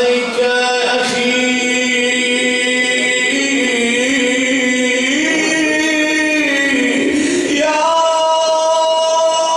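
A man chanting a mourning elegy unaccompanied into a microphone, holding long wavering notes. The pitch rises a step about five seconds in, and he settles on a higher held note near the end.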